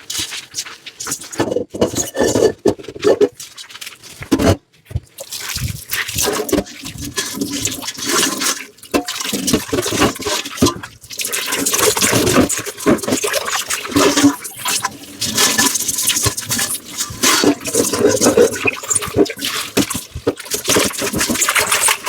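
Dishes being washed by hand in a sink: scrubbing and clinking of dishware with water splashing and running, the water sound growing more continuous about halfway through.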